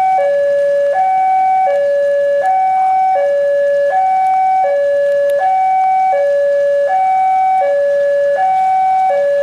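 Railway level-crossing warning alarm sounding an electronic two-tone signal, switching between a higher and a lower tone about every three quarters of a second, the signal that a train is approaching the crossing.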